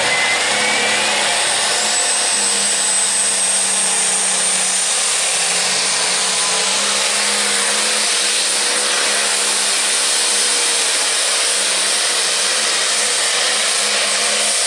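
Turbocharged diesel engine of a limited pro stock pulling tractor at full throttle under load during a pull: a loud, steady drone with a high whistle that rises in the first few seconds.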